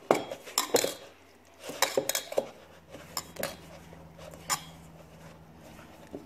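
Dough being mixed by hand in a mixing bowl: irregular sharp clinks and knocks as the hand and bangle strike the bowl, thinning out after about four seconds.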